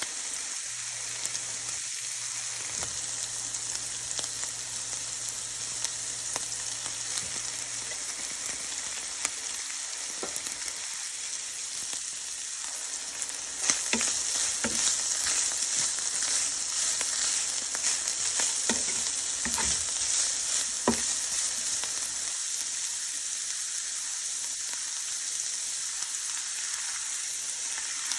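Food sizzling in hot oil in a pan, stirred now and then. The sizzle gets louder about halfway through, with a few sharp taps of a utensil against the pan.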